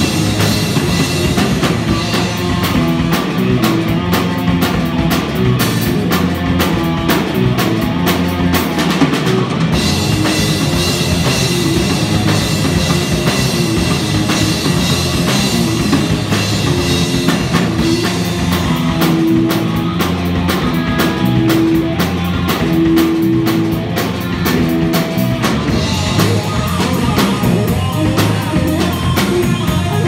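Live rock band playing an instrumental passage: electric guitars over a drum kit, loud and unbroken throughout.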